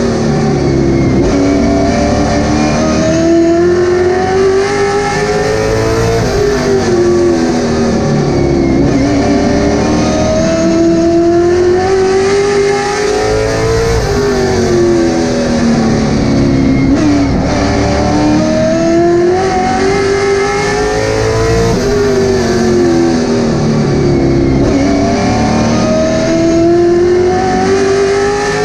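Late model stock car's V8 engine heard from inside the cockpit at race pace. Its pitch climbs on each straight and drops sharply as the driver lifts for the corners, about every seven to eight seconds.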